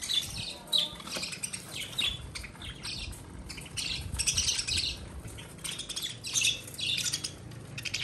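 A flock of budgerigars chirping and chattering, many short overlapping chirps with no break.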